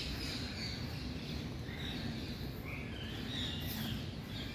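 Outdoor ambience: birds chirping intermittently over a steady low background rumble.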